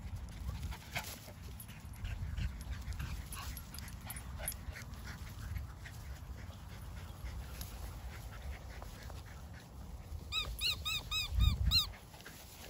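Low rumble of wind on the microphone over small dogs running through grass; about ten seconds in, a dog gives a quick run of about seven high yips, four or five a second.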